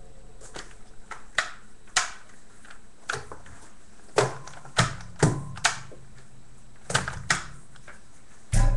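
Irregular sharp clicks and knocks, about a dozen spread over several seconds with a louder cluster in the middle and a heavier knock near the end, as a bearded collie puppy moves about on a wooden floor.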